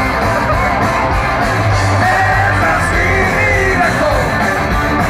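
Live rock band playing loud, with a singer's voice over guitars, bass and drums, heard from within the crowd in front of the stage.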